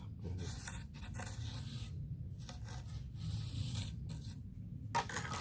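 Steel plastering trowel scraping wet cement mortar, shaving and smoothing the excess to form a sharp corner edge. It goes in a series of scraping strokes about a second apart, with a louder stroke near the end.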